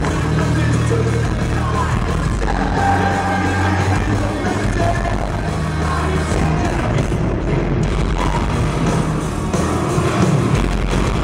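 Rock band playing live and loud: electric guitars, bass and drums, heard from within the audience.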